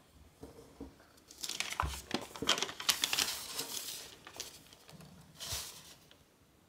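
Sheet of origami paper crinkling and rustling under the fingers as it is folded along its pleats, a dense stretch of crackles from about a second and a half to four seconds in, then a shorter rustle near the end.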